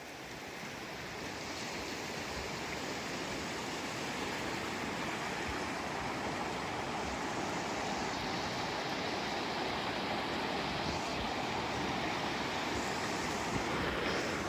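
Floodwater of a swollen river rushing past in a steady, unbroken wash of water noise, growing a little louder over the first couple of seconds.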